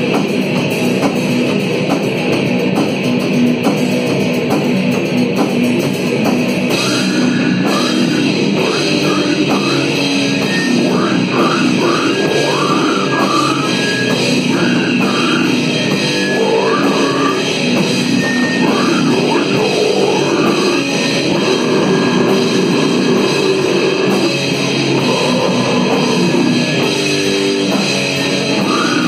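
Heavy, distorted groovy goregrind song played by a band with drum kit and guitar, loud and unbroken. About seven seconds in, a higher wavering line comes in over the riff and runs until a little past the middle.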